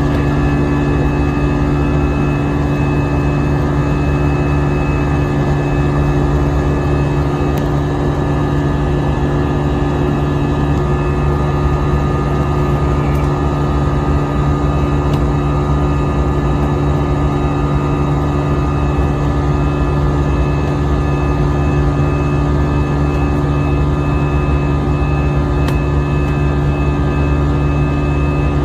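Airbus A320 jet engines droning steadily, heard from inside the passenger cabin: a constant rumble with several steady tones over it.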